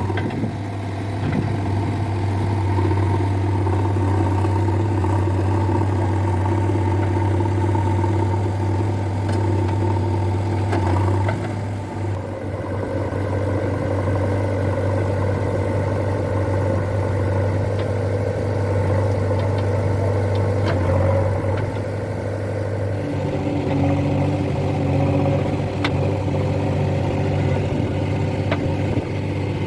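Heavy machinery diesel engines running steadily, the engine note shifting about eleven seconds in and again about twenty-three seconds in.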